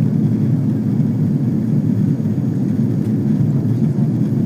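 Steady, low-pitched cabin drone of an Airbus A330 in flight, engine and airflow noise heard from inside the passenger cabin.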